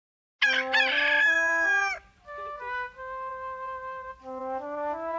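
A rooster crows about half a second in. It is followed by soft, sustained flute-like notes that step from one pitch to the next as the intro music begins.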